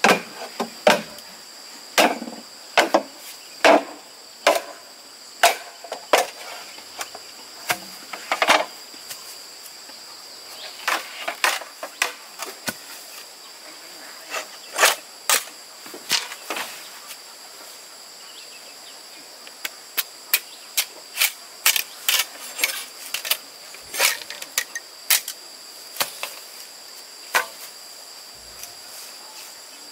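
Machete chopping at a bamboo pole: irregular sharp strokes, in clusters separated by short pauses. A steady high drone of insects runs underneath.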